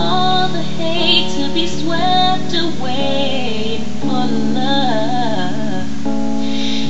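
A song with a woman singing a slow melody over held instrumental chords.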